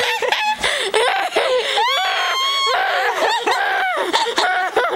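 Two women laughing hysterically, with high-pitched shrieks and squeals that slide up and down in pitch, hardly pausing.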